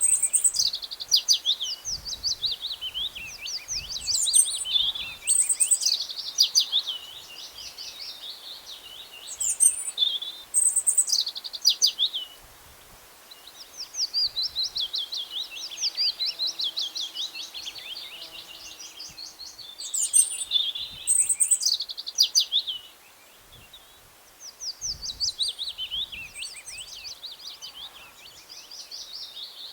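Birds chirping and twittering in fast runs of high, falling notes, with brief lulls about twelve and twenty-three seconds in.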